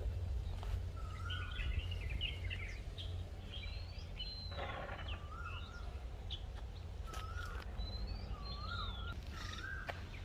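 Small birds chirping and calling: a short whistled note repeated several times, with quicker chatter in between, over a steady low rumble.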